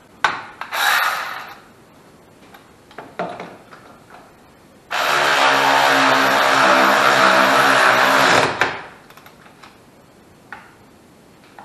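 Hand power tool running steadily for about three and a half seconds, starting about five seconds in and stopping abruptly, with a steady motor pitch. Before it come a few clicks and knocks of metal parts being handled.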